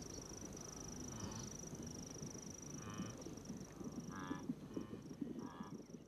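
Faint wildebeest herd ambience: short calls repeating about once a second, over a thin steady high whine and low scattered rustle.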